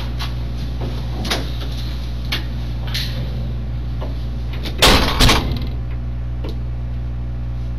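Steady low electrical hum of a room recording, broken by light clicks and knocks. A door latches shut at the start, and a louder double knock comes about five seconds in.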